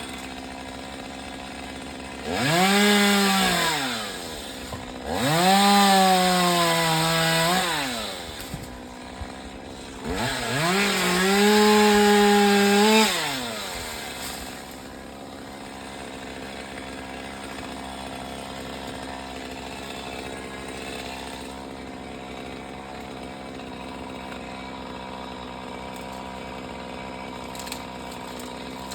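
Chainsaw revved up to full throttle three times, each burst a few seconds long with the pitch rising fast, holding, then falling back. Between and after the bursts it idles steadily.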